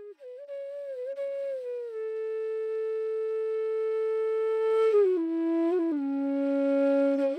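Background music: a solo flute melody with long held notes, dropping to a lower held note about five seconds in.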